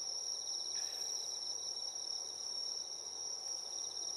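Night insects, crickets among them, singing steadily: a continuous high trill with a fainter pulsing one just below it.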